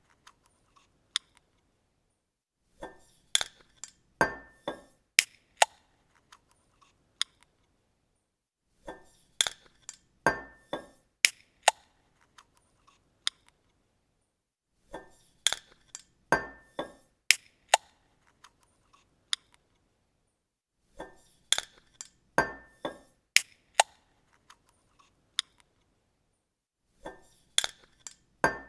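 A bottle cap being opened on a glass bottle: a quick series of sharp clicks and clinks with a brief metallic ring. It comes five times, about every six seconds, with silence in between.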